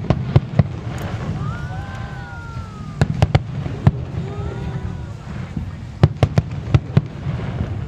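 Aerial fireworks going off, with sharp bangs coming in three quick clusters a few seconds apart over a steady low rumble.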